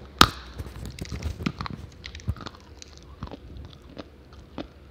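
A dry lump of multani mitti (fuller's earth clay) is bitten with one loud sharp crack, followed by crunchy chewing of the brittle clay. The crunching thins to scattered clicks after about two seconds.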